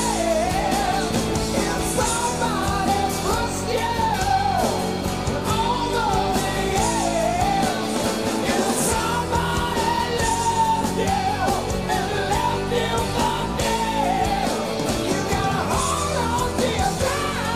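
Grunge rock song playing: a male lead vocal sings and wails a wavering melody over a full rock band.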